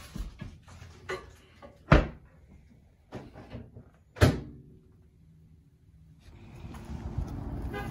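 Two sharp knocks about two and four seconds in, among lighter clicks, then a steady low rumbling noise rising near the end.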